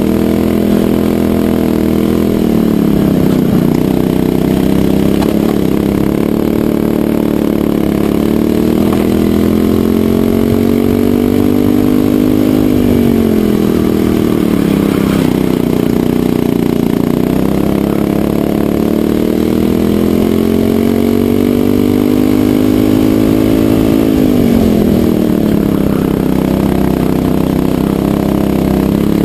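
Racing kart engine at full throttle, heard onboard the kart. Its pitch climbs steadily along the straights and drops quickly each time the driver lifts for a corner, most sharply twice.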